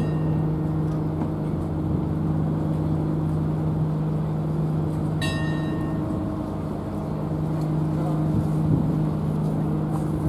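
Ship's machinery at the quay running with a steady low hum. About halfway through comes a short, high-pitched tone.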